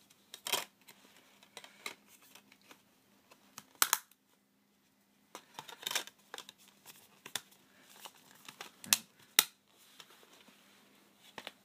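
Scattered clicks and taps from hands handling a plastic DVD case and its clear disc trays, with a few sharper knocks.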